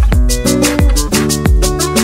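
Background music with a steady beat of deep kick drums and hi-hats.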